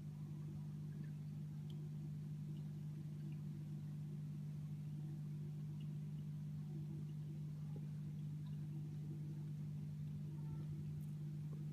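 A steady low hum, unchanging throughout, with a few faint, scattered ticks.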